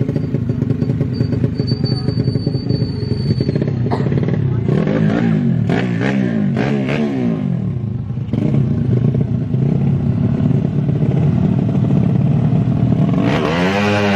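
Small motorcycle engines running and being revved, the pitch climbing and falling in repeated sweeps a few seconds in and again near the end.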